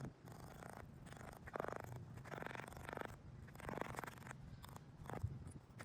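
About five short rasping scrapes across the textured surface of a hard tennis court. They are the sounding-out of a raised, hollow patch where the coating has lifted off the base.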